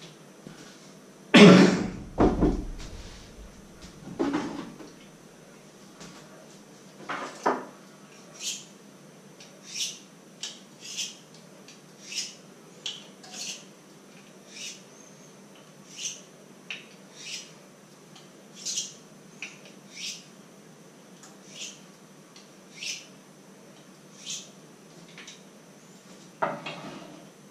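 Small kitchen knife peeling small vegetables by hand: short, sharp scraping strokes about one a second, after a few louder knocks on the wooden cutting board in the first seconds.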